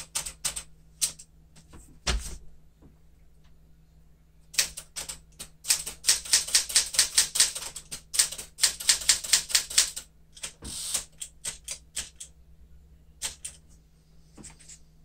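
1975 Smith-Corona Galaxie Twelve manual typewriter being typed on: a few key strikes, then a fast, steady run of typebar strikes for about five seconds from around the middle, followed by a handful of slower strikes.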